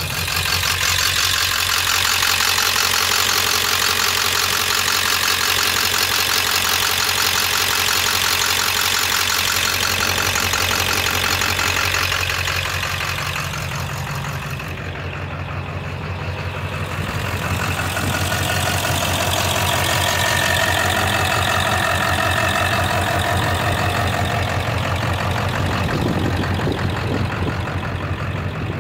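7.3 Power Stroke V8 turbo-diesel running with its Holset HX50 turbocharger, a fast steady diesel clatter with strong hiss. It comes up loud at the start, eases off about twelve seconds in, then builds again, and a whistling tone joins in during the second half.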